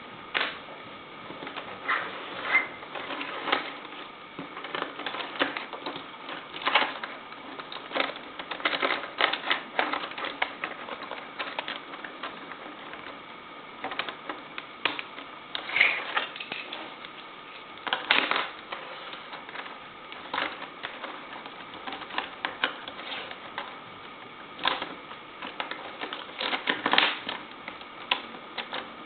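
Lego Technic plastic parts clicking and knocking together as the model is reassembled by hand: irregular snaps and clusters of clicks as pieces are fitted back into place.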